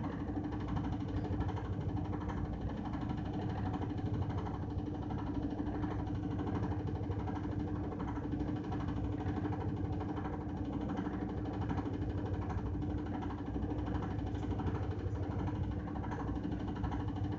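Washing machine running, its motor giving a steady hum over a low vibrating rumble.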